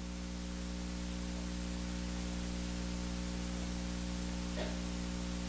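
Steady low drone of several held tones under a faint even hiss, coming through the church's amplified sound system.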